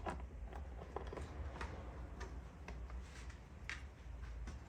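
Faint, irregular light clicks and ticks, about two a second, from a T8 Torx screwdriver turning out a small screw inside an iMac.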